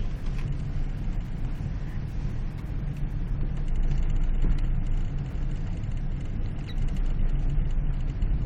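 Car driving through deep snow, heard from inside the cabin: a steady low engine and road rumble, with scattered small clicks and crackles over it.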